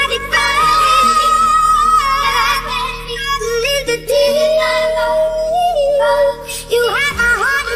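A voice singing a pop song over backing music, with long held notes that waver in pitch.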